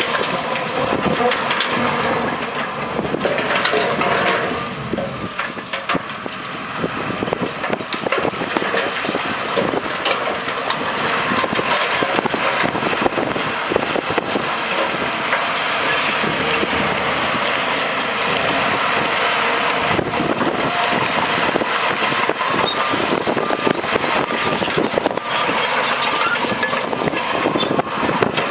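Heavy earthmoving machinery at work: a diesel engine running under load amid steady clanking, scraping and crunching of dirt and rock.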